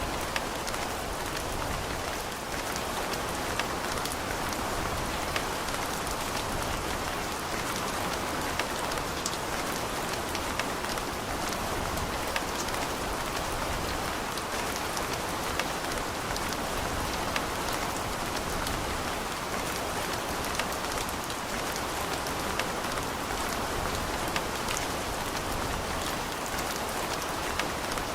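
Steady rain falling, an even hiss dotted with the sharp ticks of individual drops hitting a surface close by.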